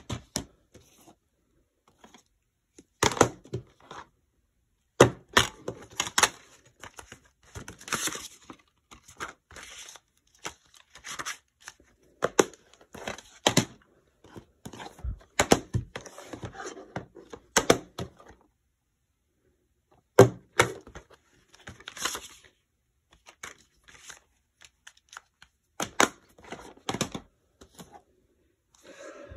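Plastic DVD cases being handled: irregular clicks and clacks as cases are opened, snapped shut and set down on a wooden desk, with some rustling of paper inserts.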